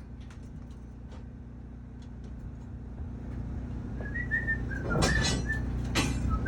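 Steady low machine hum, with a run of short, high whistled notes starting about four seconds in and two sharp knocks near the end.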